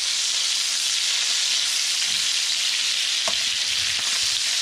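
Fish fillets frying in hot melted butter in a pan: a steady sizzling hiss, with a single light click about three seconds in.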